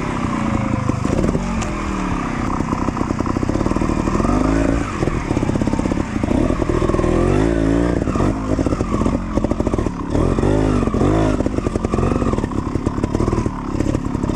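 Trials motorcycle engine running at low revs and blipped repeatedly, each rev rising and falling in pitch.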